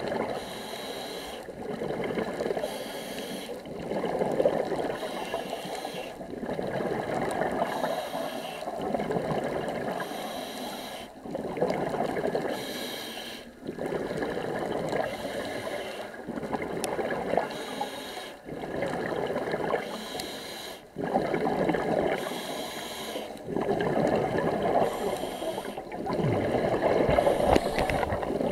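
Scuba diver breathing through a regulator underwater: a regular cycle of hissing inhales and bubbling exhales, a breath every few seconds.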